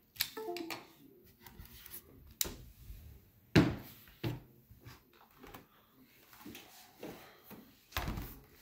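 Irregular clicks and knocks of a laptop being handled on a table, with a louder thud about three and a half seconds in and another near the end.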